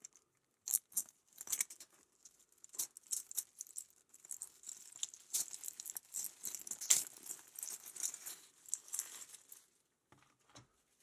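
Packaging being handled and opened by hand: crinkling and rustling with many small clicks and taps for most of the time, then a few separate taps near the end.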